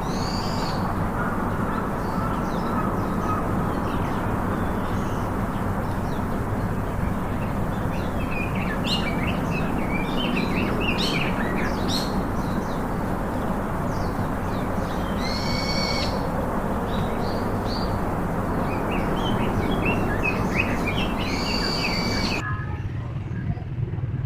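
Steady low background noise of a busy outdoor place, with birds chirping in the second half and two longer, drawn-out calls, one midway and one near the end. The high sounds drop away suddenly shortly before the end.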